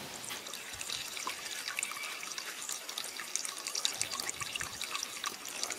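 Water trickling and dripping, with many small uneven drips and splashes.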